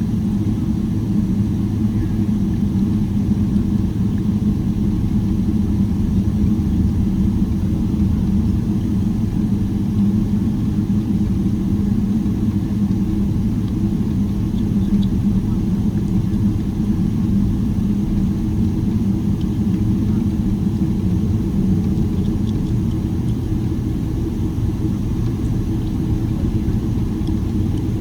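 Boeing 777-300ER's GE90 turbofans running steadily at low power, heard from inside the passenger cabin as a deep, even rumble and hum while the airliner taxis.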